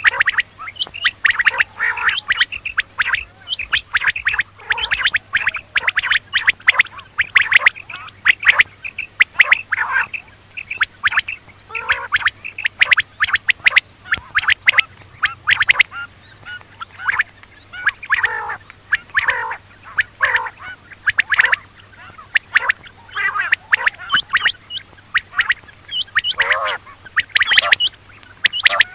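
Quail calling: a dense, continuous run of short, sharp notes repeated in quick series, several to the second. A faint steady hum sits underneath.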